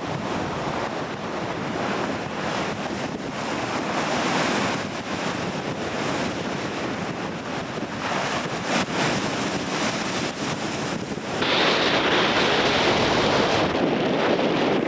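Surf breaking on a rocky shore, with strong wind buffeting the microphone. The rush of water swells and falls, and it grows sharply louder about eleven seconds in as a bigger wave crashes.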